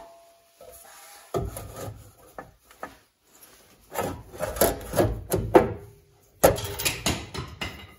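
A handmade steel panel scraping and knocking against the car body in several bouts of rubs and clunks as it is offered up for a trial fit.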